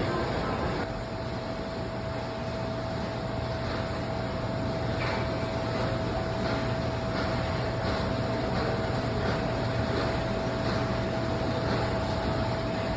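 Forging screw press running idle: a steady machine hum with a constant whine. Faint regular ticks come about once a second in the second half, and there are no heavy forging blows.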